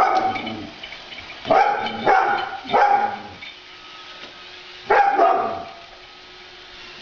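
Dog barking: one bark at the start, three more in quick succession about a second and a half in, and another about five seconds in.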